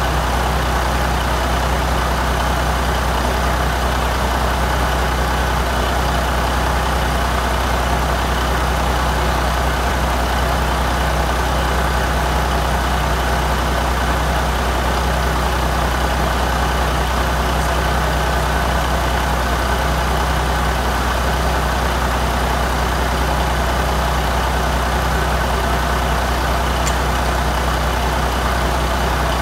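Caterpillar 3406B inline-six turbocharged diesel engine running on a test stand, holding a steady, even speed with no revving.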